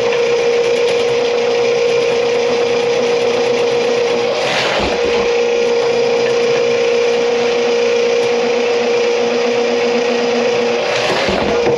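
Drain-cleaning machine running steadily on a kitchen drain line plugged with grease: a loud motor hum over a rushing noise, which breaks briefly twice with a swishing sweep.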